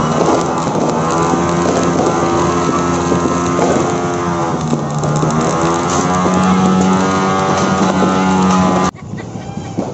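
Several buzzing party horns blown at once, holding and bending their notes over a dense crackle of firecrackers; the din cuts off suddenly about nine seconds in.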